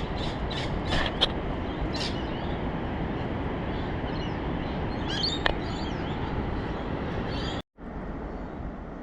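A steady outdoor rush of noise with a few short bird calls, in clusters about a second in and again about five seconds in. Near the end the sound drops out suddenly for a moment.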